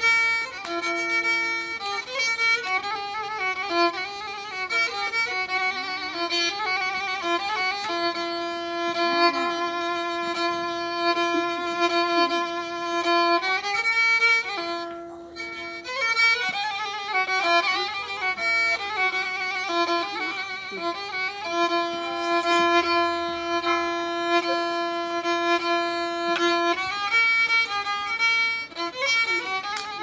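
Solo violin improvising in Turkish folk style: quick, ornamented runs of notes alternating with long held notes, twice sustained for several seconds.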